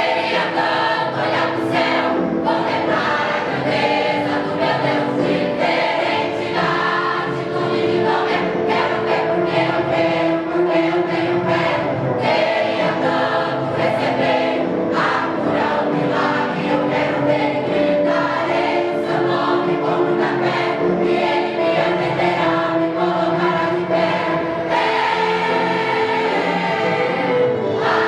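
Vocal group singing a Brazilian gospel medley, several voices in harmony holding long notes.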